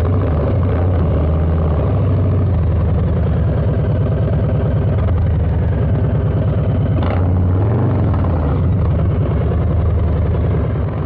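Harley-Davidson Milwaukee-Eight 117 V-twin running through a Two Brothers 2-into-1 exhaust, loud and steady, its pitch easing briefly about a second in and again near eight seconds.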